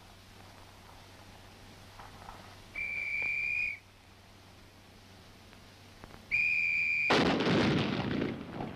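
Two whistle blasts, each a steady high tone of about a second, then right after the second a jeep-mounted 105 mm recoilless rifle firing: a sudden loud blast that fades over about a second and a half.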